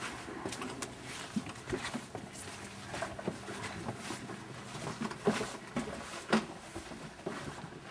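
Irregular knocks, taps and shuffling noises in a small room, over a faint steady low hum. The loudest knocks come about five and six seconds in.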